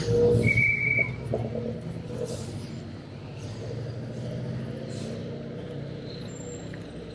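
Motor vehicle engine running close by on a street, loudest in the first second, then a steady low hum of traffic. A brief high tone sounds about half a second in.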